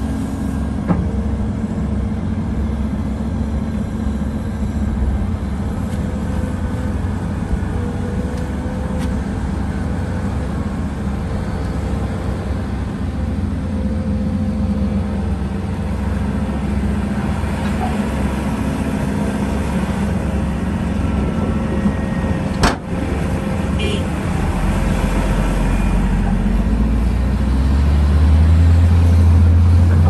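Volvo EC700 hydraulic excavator's diesel engine running steadily while working. A deeper rumble builds over the last five seconds and becomes the loudest part. There is a single sharp click about 23 seconds in.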